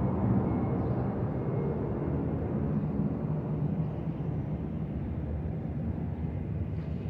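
Jet airliner flying overhead: a steady low engine rumble that slowly fades as the plane moves away.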